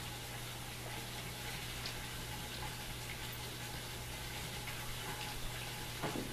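Small tiered patio water fountain trickling steadily, over a constant low hum.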